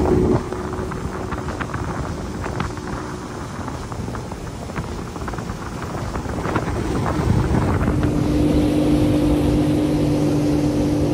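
Outboard motor pushing a flat-bottom boat, its steady drone mixed with wind buffeting the microphone. For several seconds the engine tone sinks under wind noise and scattered light clicks, then comes back steady and louder about eight seconds in.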